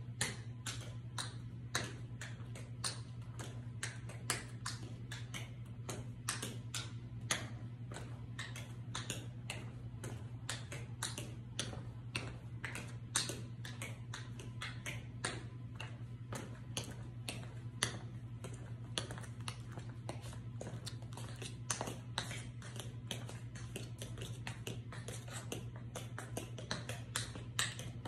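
Tap shoes' metal taps striking a hard vinyl floor in quick, uneven clicks, about three a second with a few louder accents, over a steady low hum.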